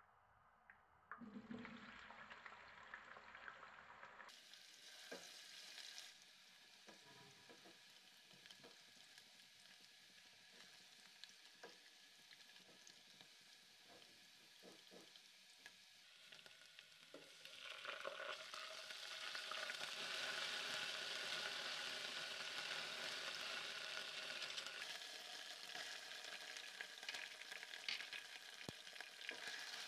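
Sliced onions sizzling in hot oil in a cooking pot, starting about a second in as they go into the oil. A spatula stirs them with scattered scrapes and taps against the pot. The sizzle grows clearly louder a little past halfway.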